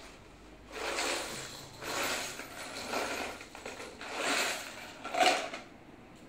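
Tools and small objects being handled and rummaged through in a tool backpack: five short clattering, rustling bursts about a second apart, the last the loudest.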